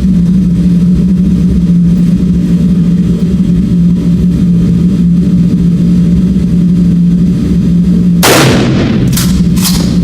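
A steady loud low hum with a single gunshot about eight seconds in, its report dying away over most of a second. Two shorter, lighter sharp cracks follow within the next second and a half.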